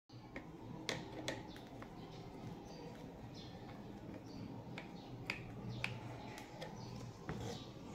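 Scattered light clicks and ticks of a screwdriver turning the centre screw in the plastic rear housing of an electric fan motor, a screw that bears on the motor shaft.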